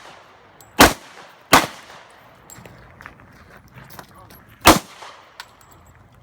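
Pistol shots fired on a practical-shooting stage: two sharp reports about three-quarters of a second apart near the start, then a third about three seconds later. Each leaves a short echo, and fainter small cracks and clicks come between them.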